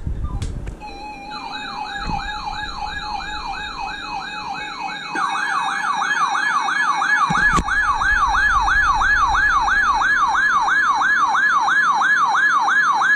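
Electronic siren on the yelp setting: a fast, repeating up-and-down pitch sweep, about three sweeps a second. It starts a second or so in and gets louder about five seconds in. A single knock sounds about seven seconds in.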